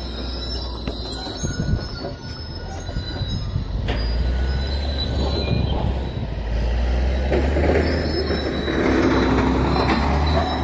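Tracked bulldozer ripping land: diesel engine running with a low drone and high metallic squealing from the tracks, growing rougher and louder in the second half.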